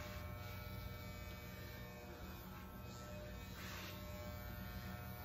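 Corded electric hair clippers running with a steady buzzing hum while cutting hair.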